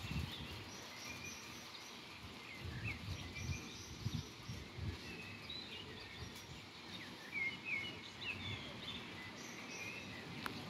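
Songbirds chirping and singing in short phrases throughout, over a faint steady outdoor hiss, with occasional low bumps on the microphone.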